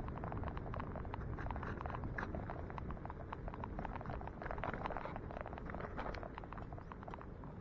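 Bicycle rolling on a steep road: a steady low rumble from the tyres and wind, with many quick, irregular rattling clicks from the bike.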